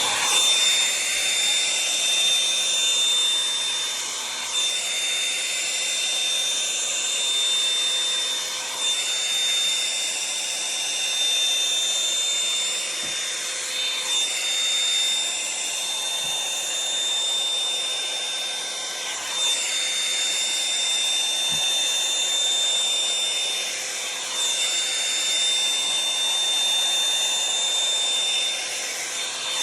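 Revlon One-Step hair dryer brush running on high: a steady motor whine over rushing air, the sound shifting every four or five seconds as the brush is worked through the hair.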